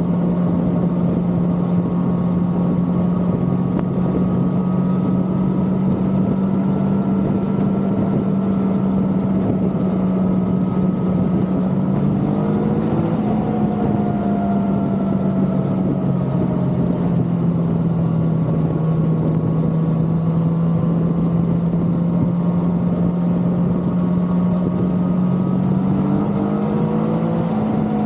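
Motorcycle engine running steadily while riding at road speed, with a rushing noise underneath; its note rises briefly twice, a little before the middle and near the end.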